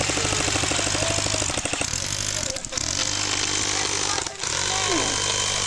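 Sustained full-auto airsoft gunfire: a fast, even rattle of shots that breaks off briefly twice and picks up again.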